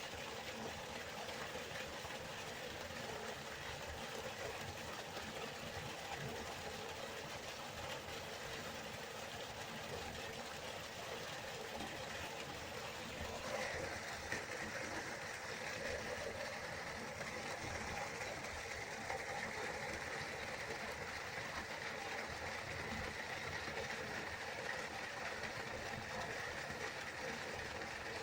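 River water flowing, a continuous steady rushing. About halfway through, the texture of the flow changes and a brighter, higher hiss comes up.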